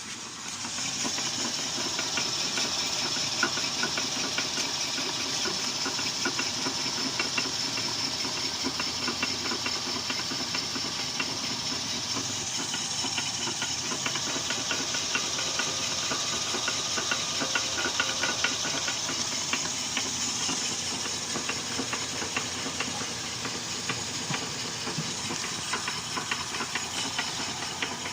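Toyota Altis with its 3ZZ-FE 1.6-litre four-cylinder running, with a steady hiss and a fast, even knocking tick over it. This is the loud noise the owner traces to a worn inner CV joint.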